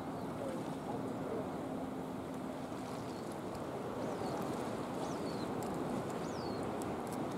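Steady wash of sea and wind noise. A faint steady hum runs through the first part, and from about three seconds in a bird gives a short, high, falling whistle about once a second.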